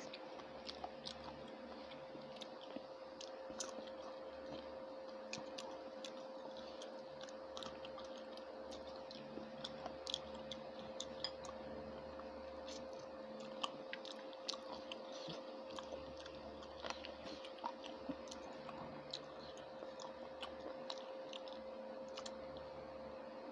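A person eating rice and curry with her fingers: chewing with frequent small sharp clicks, over a steady background hum.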